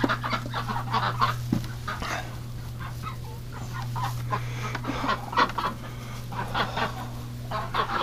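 Domestic ducks giving many short, scattered quacks and calls, hens fussing as eggs are taken from their nest boxes. A steady low hum runs underneath.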